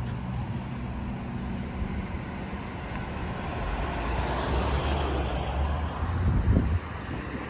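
Low, steady rumble of a moving vehicle, with some wind noise.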